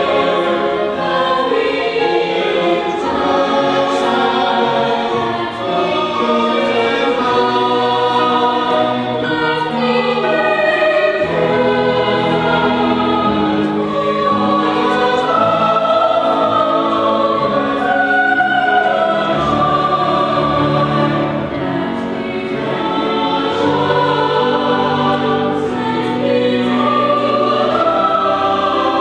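High school mixed choir of girls' and boys' voices singing in parts: held chords that move from note to note without a pause.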